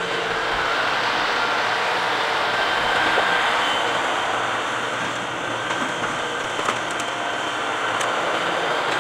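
LS compact tractor's diesel engine running steadily as the tractor drives up, with a few faint clicks over it.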